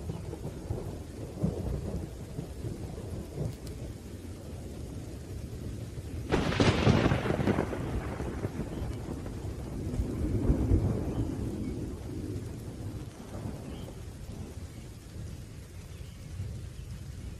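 Rain falling in a thunderstorm with low rumbling thunder throughout. A sharp thunderclap breaks about six seconds in and rolls away over a couple of seconds, and another swell of rumbling comes around ten seconds in.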